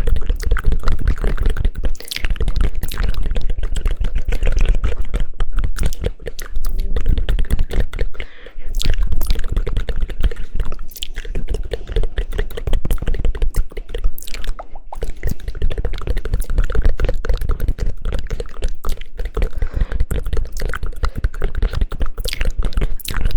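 Fast, dense hand clapping and tapping close to the microphone as an ASMR trigger, a rapid stream of sharp slaps that breaks off briefly every few seconds.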